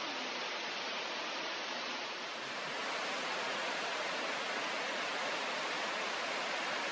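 Nachi Falls, a 133 m waterfall, rushing steadily as an even wash of falling water. About two seconds in it swells a little louder and brighter.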